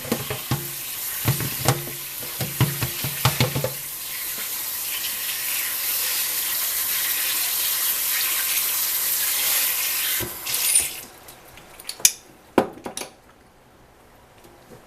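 Kitchen tap running into the sink as green beans are rinsed, after a few seconds of clattering at the start. The water is shut off about eleven seconds in, followed by a few sharp knocks.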